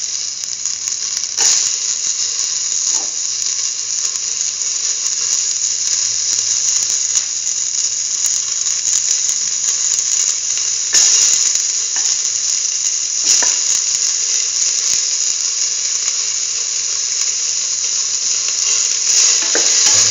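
Oil sizzling steadily in a hot steel pan as sliced onion pieces are dropped in, with a few short knocks as pieces land.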